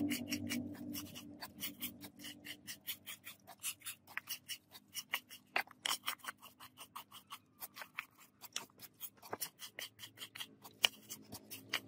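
Red scouring pad scrubbing a greasy cast-metal part in a tray of dirty liquid: quick, repeated back-and-forth rubbing strokes, several a second.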